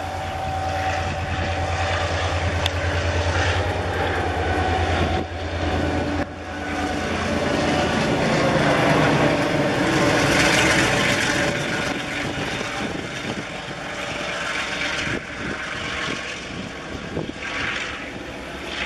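Taiwan Railway R-class diesel-electric locomotive hauling a short freight train across a viaduct. The engine's drone builds and is loudest as the locomotive passes, then the wagons' wheels knock rhythmically over the rail joints as the train moves away.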